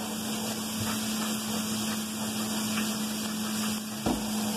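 Chopped bacon sizzling in a frying pan over a steady low hum, with a single thump about four seconds in.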